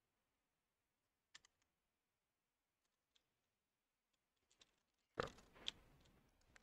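Faint, scattered computer keyboard keystrokes, a few isolated clicks and then a small cluster, followed near the end by a louder short burst of noise that fades over about a second.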